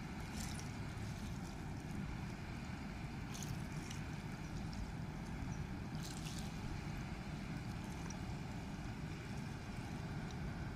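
Steady, distant low rumble of a cargo barge convoy's diesel engine passing on the river, with a few faint brief clicks.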